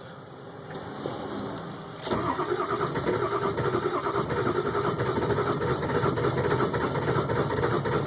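Ford 7.3 Powerstroke V8 turbodiesel cranking on the starter from about two seconds in. It turns over in a steady, rapidly pulsing rhythm without catching: a hard cold start that will not fire.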